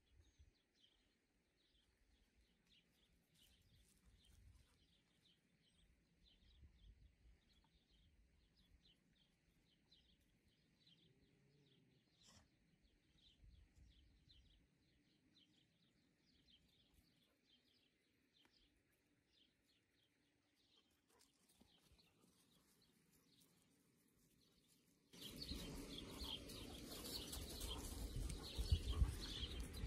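Near-silent outdoor quiet with a small bird's short high chirps repeating every second or so. About 25 seconds in, a much louder noise with no clear tone sets in suddenly and stays.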